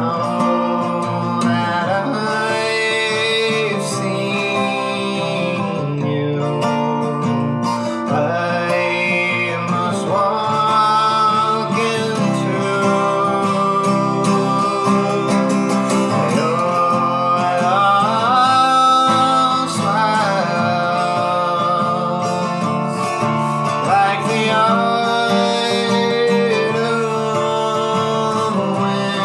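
Acoustic guitar strummed steadily, with a man's singing voice over it in long, gliding notes.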